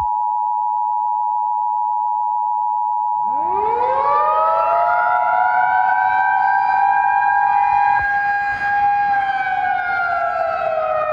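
Emergency Alert System two-tone attention signal, a steady piercing chord that stops about eight seconds in. A few seconds in, a civil-defense siren winds up beneath it, holds a two-note chord, and begins to wind down near the end.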